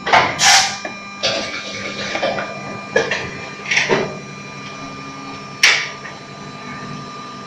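Fully automatic injection moulding machine making gallon-jug caps, running with a steady hum broken by several short hissing bursts and clunks.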